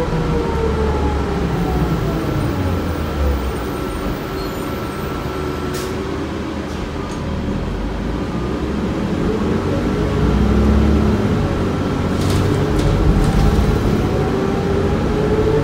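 Interior sound of a New Flyer C40LFR bus heard from the rear seats: its Cummins Westport ISL-G natural-gas engine and Allison B400R6 transmission whine falling in pitch as the bus slows, easing off in the middle, then rising again as it accelerates near the end. A few brief rattles come through along the way.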